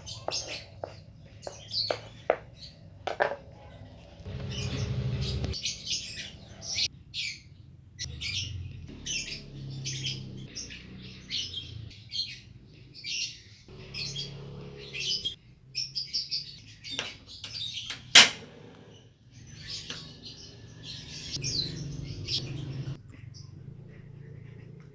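Pet bird chirping over and over in short high chirps, with a few sharp clicks in between, one much louder than the rest.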